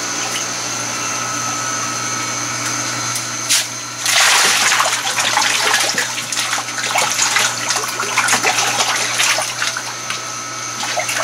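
Aquaponics tank water running with a steady pump hum underneath. About four seconds in, loud irregular splashing and churning of water at the surface starts and keeps going.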